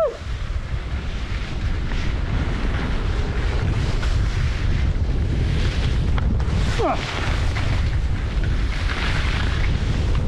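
Wind buffeting the microphone in a steady low rumble while skis scrape and hiss over hard, wind-crusted snow on a steep descent. A short falling tone cuts through about seven seconds in.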